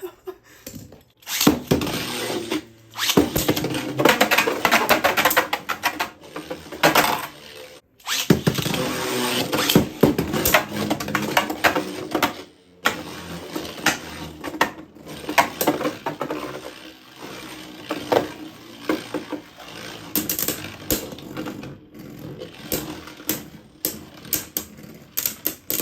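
Beyblade Burst spinning tops whirring and clattering against each other in a plastic battle stadium, a dense scraping rattle full of small clicks with a few brief breaks.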